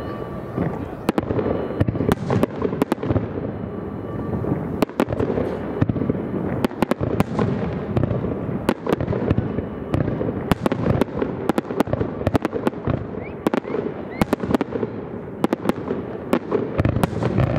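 Aerial fireworks display: shells bursting in quick succession, many sharp reports over a continuous rumble of overlapping bursts and their echoes.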